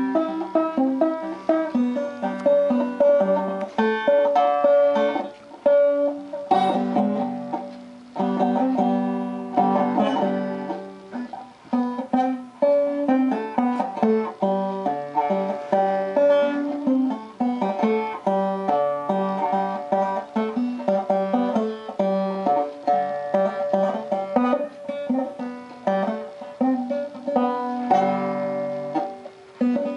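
Banjo picked in a steady run of quick plucked notes, with a couple of short pauses.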